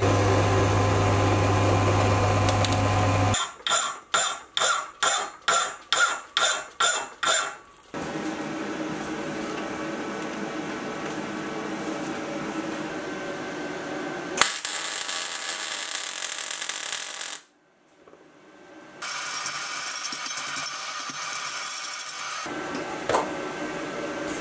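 Metal lathe turning a steel rod, running steadily with a low hum. About three seconds in it gives way to about a dozen evenly spaced rasping strokes, a little under three a second, followed by long stretches of steady noise with a louder, hissier burst partway through and a brief break.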